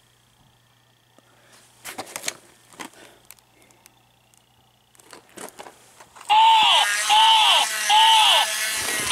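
Crinkling and clicks of plastic blister packs being handled, then about six seconds in a battery-powered crawling toy soldier's electronic sound effect starts loudly through its small speaker: a rising-and-falling tone with hiss, repeating about every two-thirds of a second.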